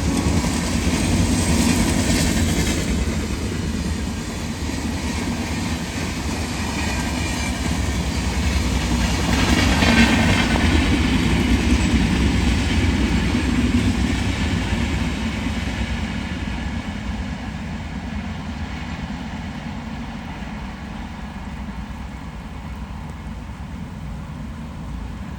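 Humsafar Express passenger train rolling past on the track, its coaches rumbling steadily, loudest around ten to fourteen seconds in, then fading away as it draws off.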